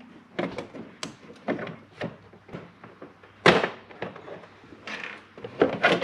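A plastic engine-bay cover being unclipped and handled: a series of plastic knocks and clicks, the loudest about three and a half seconds in and a quick cluster near the end.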